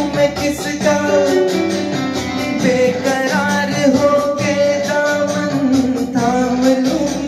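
A man singing a melodic song with long held notes over instrumental backing music.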